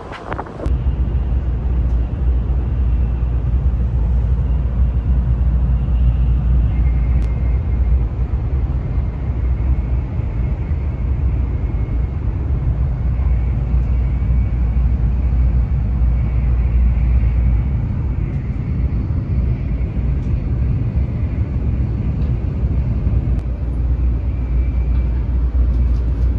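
Inside the cabin of a Shinkansen Kodama train running on the line: a steady low rumble with a faint high whine above it, starting suddenly just after the first second.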